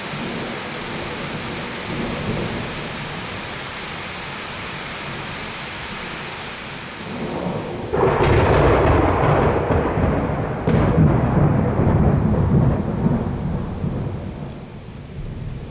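Steady heavy rain, then about halfway a sudden loud thunderclap that rumbles on for several seconds, with a second crack a few seconds later, fading toward the end.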